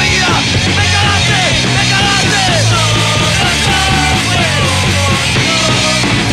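Loud punk rock song by a full band with electric guitars and drums.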